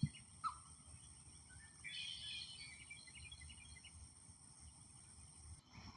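Faint natural ambience: small birds chirping on and off, busiest around the middle, over a steady high-pitched insect drone that cuts off shortly before the end.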